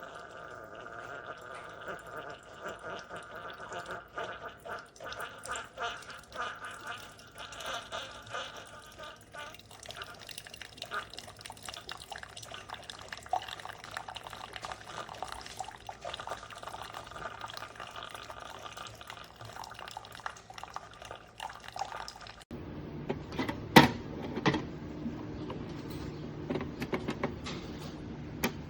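Keurig K-Express pod coffee maker brewing, with hot coffee streaming and gurgling into a cup. About 22 seconds in the sound changes abruptly to a lower hum with a couple of sharp clicks.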